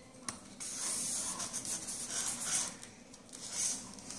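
Styrofoam pieces rubbing and scraping together as the tail piece is pushed into the airplane's body. It is a hissing scratch in two stretches, a longer one starting about half a second in and a short one near the end.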